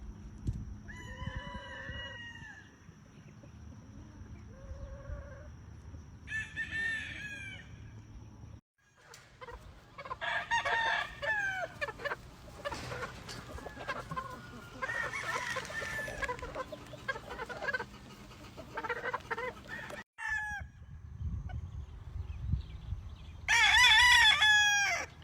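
Gamefowl roosters crowing one after another, mixed with clucking. The loudest is a long crow near the end.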